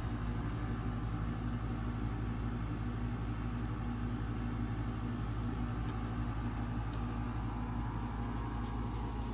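A steady low mechanical hum with a constant pitched drone, like a motor or engine running without change.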